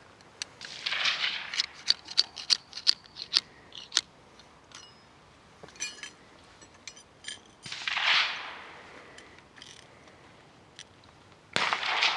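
Muzzle-loading percussion pistol being handled and loaded: a quick run of sharp metallic clicks and taps in the first few seconds, a few fainter ones later, and short bursts of rustling.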